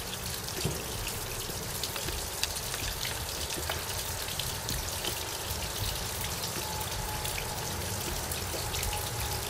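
Steady hissing noise with a few faint clicks as a small wire and screw are handled on an outboard motor's cylinder head.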